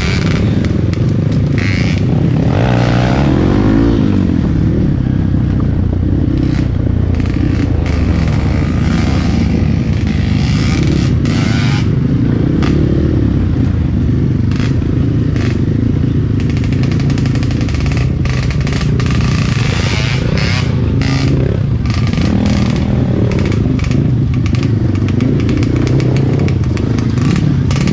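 Trail motorcycle engine running steadily under way, with a rise and fall in engine pitch a few seconds in, and frequent knocks and clatter from the bike over rough ground.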